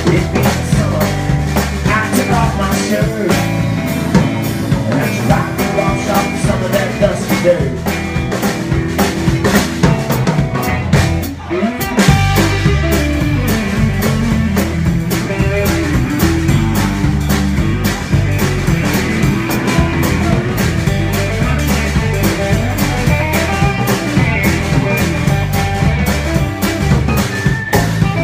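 Live band playing an instrumental passage: upright bass close up and prominent, with electric guitar and drum kit. There is a brief drop about 11 seconds in before the full band comes back in.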